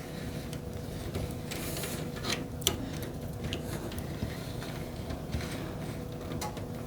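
Scattered light clicks and rustles of cables and plastic parts being handled inside a PC case, over a steady low hum.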